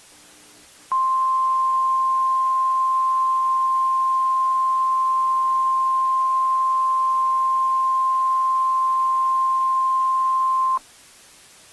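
Emergency alert attention tone: a single steady high-pitched tone held for about ten seconds, starting about a second in and cutting off sharply near the end. It is the signal that precedes an alert broadcast message.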